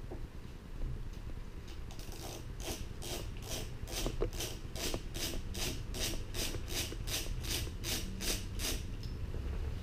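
A screwdriver unscrewing the main jet holder from a Weber 45 DCOE carburettor's jet well. It makes an even run of short rasping strokes, about three to four a second, that starts about two seconds in and stops near the end.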